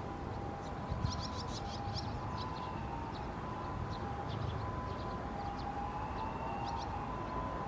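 Young barn swallows twittering, giving short high chirps in quick little clusters about a second in, again around two seconds, and near the end. Under them runs a steady whine at two pitches and a low background rumble.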